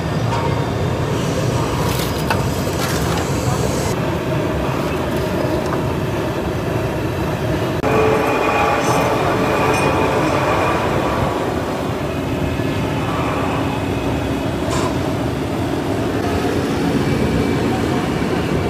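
Steady roadside traffic noise with a low rumble and background voices. A pitched tone with overtones is held from about eight seconds in for a few seconds.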